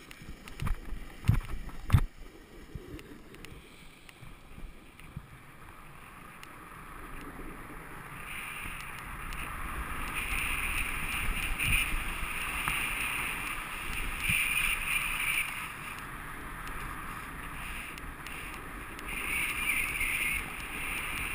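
A rider's edges sliding and hissing over groomed snow, with wind rumbling on the microphone; it grows louder about a third of the way in. A few sharp knocks come in the first two seconds.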